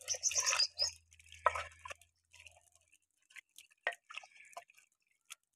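Wooden spoon stirring raw mutton, onions, tomatoes and water in a clay handi: wet squelching and scraping with light clicks. It is busiest in the first two seconds, then thins to scattered clicks.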